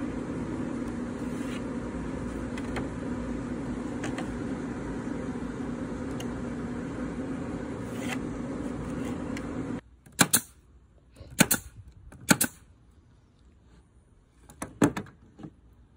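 A steady machine hum with a low drone runs for about ten seconds, then stops abruptly. After it, a nail gun fires four sharp shots into a plywood gusset, spaced a second or two apart.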